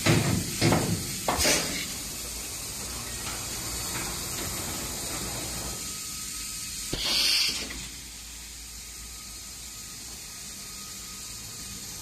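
Wire mesh panel welding machine: a run of rhythmic mechanical strokes, about three a second, stopping about a second and a half in, then a steadier quieter machine running noise with one short loud hiss about seven seconds in.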